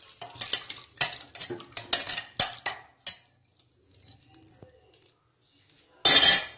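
A spatula scraping and clicking against the inside of a clay handi pot as chicken, onions and water are stirred: a quick run of scrapes and knocks for about three seconds, then only a few soft ones. About six seconds in comes a short, loud burst of noise, the loudest sound.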